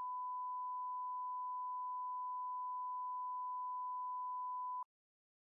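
Steady 1 kHz test tone, the line-up tone that goes with colour bars, as one pure unwavering pitch that cuts off abruptly a little before five seconds in.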